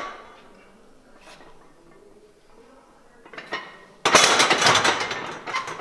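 A barbell loaded with iron plates being racked on the bench-press uprights after a set: a sudden metal clank about four seconds in, followed by a second or so of plates and bar rattling as they settle.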